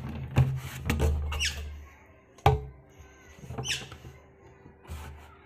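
Hollow knocks and thumps of an empty plastic water tank being handled and rolled by hand on a brick floor, the sharpest about halfway through. Two short high squeaks slide down in pitch, one early and one past the middle.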